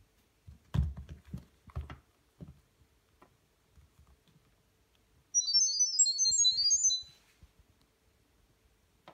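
A few taps and knocks from handling a smartphone. Then, about five seconds in, two seconds of rapid, high-pitched beeping chirps that jump about in pitch: the camera app's WiFi configuration tones, which pass the network details to the camera.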